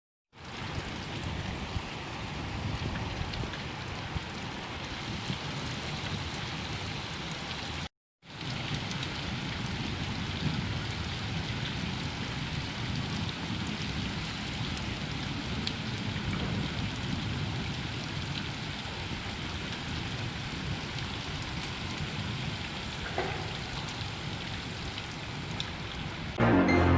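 Steady rain falling, an even hiss with a short break about eight seconds in. Music comes in just before the end.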